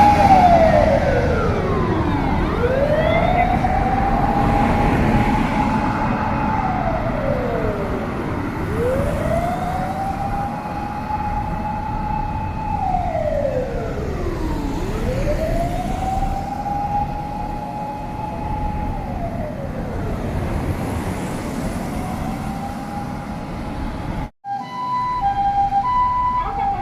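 Japanese fire-service vehicle's mechanical motor siren winding up to a steady high note, holding it, then winding down, over and over about every six seconds, with road noise under it. Near the end, after a brief break, a Japanese ambulance's two-tone electronic siren alternates between a higher and a lower note.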